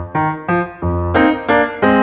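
Intro music: a piano-like keyboard playing a quick melody of short notes, about three a second.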